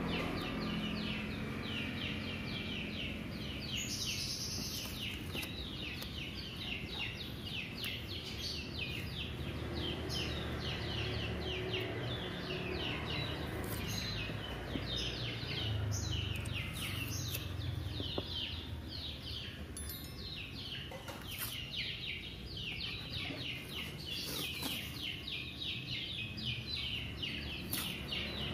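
Small birds chirping busily, many quick falling chirps a second. Now and then comes a short rasp of paper masking tape being pulled off the roll and pressed along the car's roof edge.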